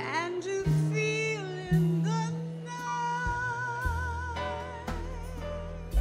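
Small jazz combo playing a slow ballad: a lead melody line with vibrato over upright bass notes, piano and drums.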